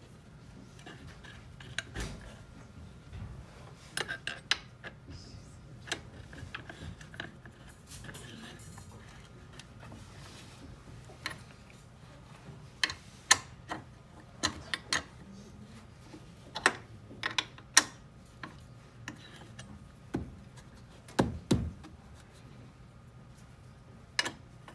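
Metal tool and screw clicks on a clay extruder's die holder as an Allen key turns the screws back in: irregular sharp metallic clicks and clinks, a few much louder ones, over a faint low hum.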